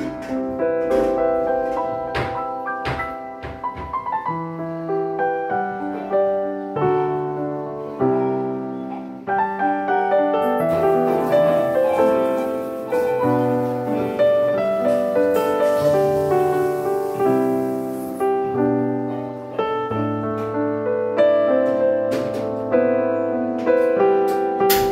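Background piano music, a gentle melody of steady single notes over low bass notes.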